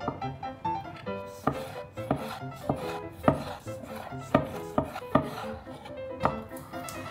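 Chef's knife cutting sliced ham, cherry tomatoes and a slice of cheese on an end-grain wooden cutting board: a series of sharp knocks as the blade meets the board, over soft background music.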